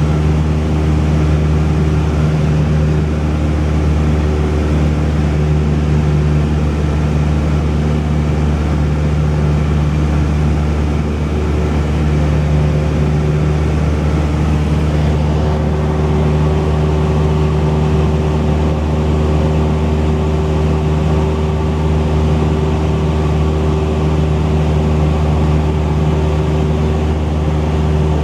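Cessna 172's piston engine and propeller droning steadily in flight, held at one even cruise setting with no change in pitch.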